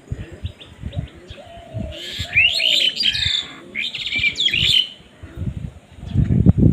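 Birds chirping in a quick run of rising and falling notes from about two to five seconds in, over short low thumps and flutters that grow heavier near the end.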